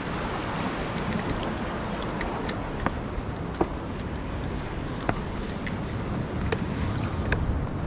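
Steady wind on the microphone and water washing against the rock breakwall, with scattered light sharp clicks and taps through it.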